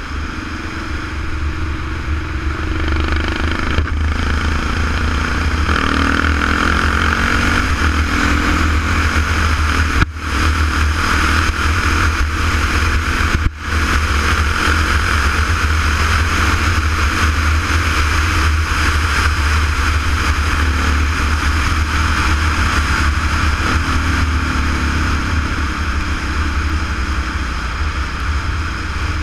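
Kawasaki KLR650's single-cylinder engine running at a steady road speed, under heavy wind rumble on the microphone. The sound drops out briefly twice, about ten and thirteen seconds in.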